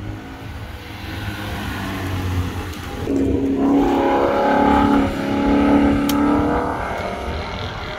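Ford Mustang's engine accelerating around a race-track corner, swelling in level about three seconds in and fading away near the end, over wind rumbling on the microphone.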